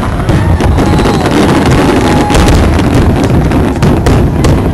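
Fireworks display going off: a dense, continuous low rumble of bursts with sharp cracks here and there, and wind buffeting the microphone.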